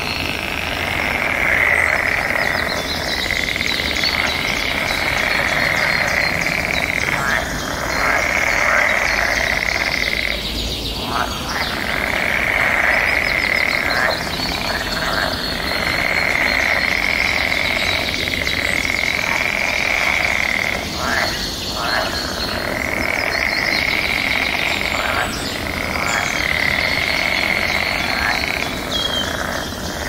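Dense chorus of calling animals: a continuous trilling chorus that drops out briefly every few seconds, with scattered higher chirps above it.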